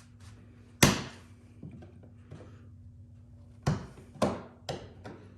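Sharp knocks and clacks of pliers working against a plastic toolbox while trying to work a tight pin loose: one loud knock about a second in, then a quick run of four near the end.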